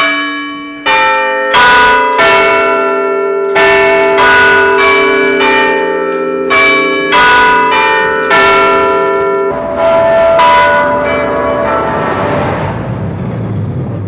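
Clock-tower chime bells ringing: a run of strikes on several bells of different pitch, about one to two a second, each left ringing. The ringing dies away over the last few seconds.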